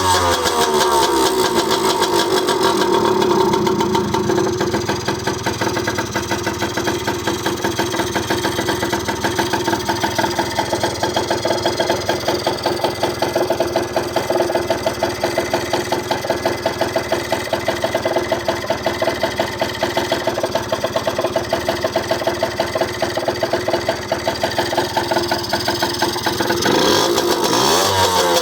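Jianshe Coyote 80 dirt bike's two-stroke single-cylinder engine running on a newly fitted carburetor. The revs fall to a steady idle in the first few seconds, then rise again near the end.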